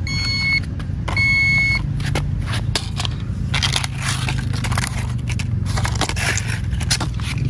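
A toy metal detector beeps twice, two high electronic tones of about half a second each, signalling a find under the cardboard. Then comes rustling, scraping and clicking as cardboard is lifted and plastic and metal toy cars are handled on paving stones, over a low steady rumble.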